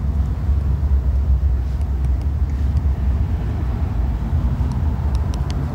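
A steady low background rumble, with a few faint ticks of a stylus on a tablet screen as words are handwritten.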